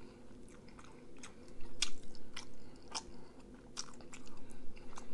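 Close-miked chewing and biting: irregular wet clicks and smacks of a mouth working on food, a few a second.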